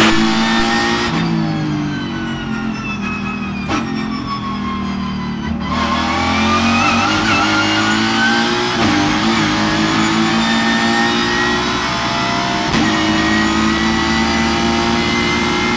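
Ford Mustang race car's V8 engine heard from inside the cockpit: its pitch falls over the first few seconds as the car slows for a corner, then climbs steadily as it accelerates, with upshifts about nine and thirteen seconds in.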